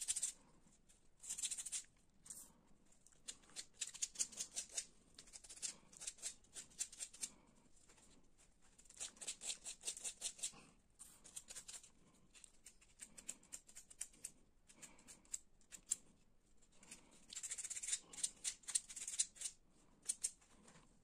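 Sandpaper rubbing by hand over a small carved linden-wood skull: bursts of quick, short scratchy strokes with brief pauses between them.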